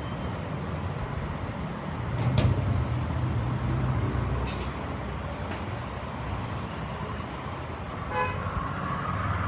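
Street traffic, a steady low engine rumble, with a short vehicle horn toot about eight seconds in and a few sharp clicks.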